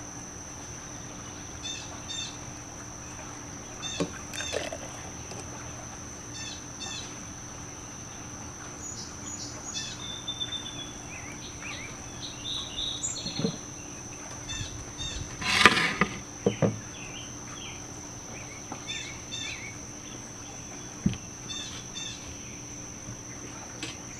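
Backyard ambience: a steady high insect drone, with birds chirping in short phrases every few seconds. There is one brief louder noisy burst about two-thirds of the way through.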